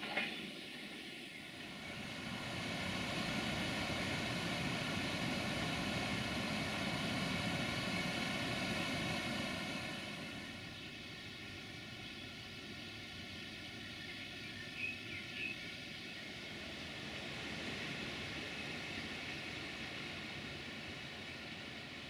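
Distant train running, a steady rumble that swells for several seconds and then fades.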